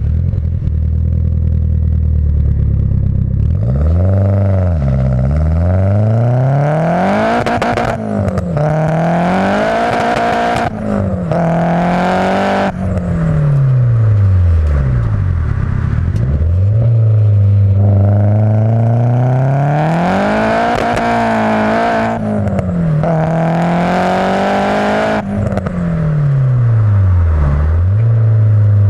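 Nissan S14's turbocharged SR20DET four-cylinder, fitted with a Tomei M7960 turbo and a decatted 3-inch single-silencer exhaust, revving up and dropping back in pitch again and again. Several pulls break off abruptly, and between the pulls it holds steady at a lower pitch.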